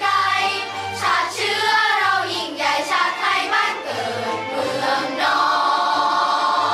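Children's choir singing a song, with a low accompaniment pulsing underneath.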